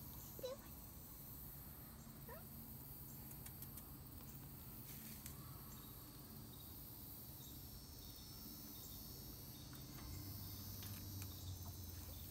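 Faint outdoor ambience of insects droning steadily at a high pitch, with a few short faint chirps and clicks. A low hum comes in near the end.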